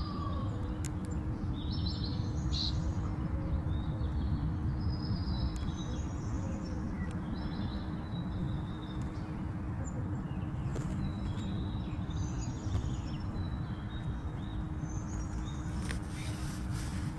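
Scattered short, high-pitched bird chirps over a steady low background rumble.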